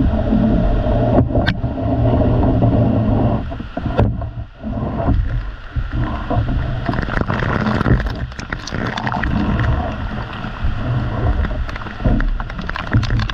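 Heavy tropical downpour heard through a GoPro's microphone: a steady hiss of rain with a deep rumble, and frequent sharp taps of drops striking close to the camera, thicker in the second half.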